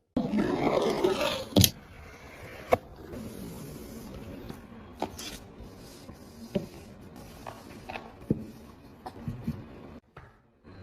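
Phone box and packaging being handled: a loud scraping, rustling slide for the first second and a half, then quieter rubbing broken by a handful of sharp clicks and taps.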